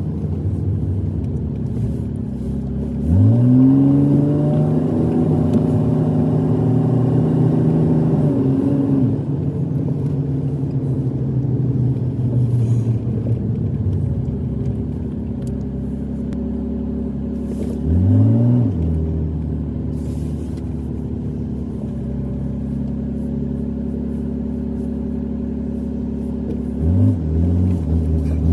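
Truck engine running while driving, heard from inside the cab; it pulls away and accelerates three times, its pitch rising then holding steady, about 3 seconds in, about 18 seconds in and near the end.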